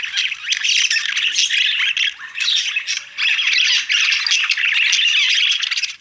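Budgerigar chattering: a fast stream of high chirps and squawks, with short pauses near the middle, that cuts off suddenly at the end.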